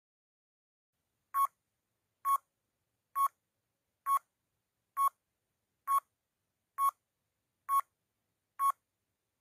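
Countdown timer sound effect: nine short electronic beeps, about one a second, each marking one step of the count.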